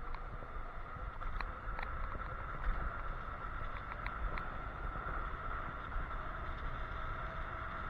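Wind rushing over the microphone and road noise from an electric scooter moving at speed, with a steady high whine throughout. A few light clicks or rattles come in the first half.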